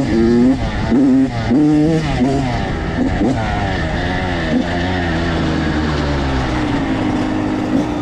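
Dirt bike engine revving up and down several times over the first few seconds as the throttle is worked on rough, soft ground, then running at a steadier pace.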